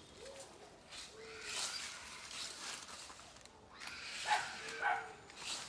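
Dogs barking in the background, a few short separate barks.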